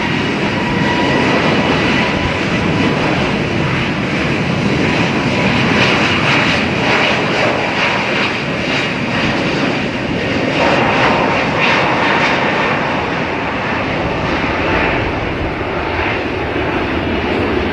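Jet airliner engines running loud and steady, a broad noise carrying a thin high whine.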